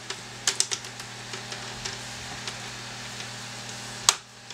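Plastic laptop screen bezel being pressed onto the display lid, its clips clicking: a quick run of small clicks about half a second in, light ticks, then one sharp snap about four seconds in. A steady low hum runs underneath.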